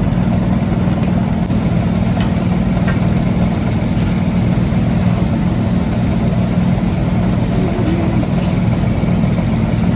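A steady low mechanical hum, like a motor running without a break, with no change in pitch or level.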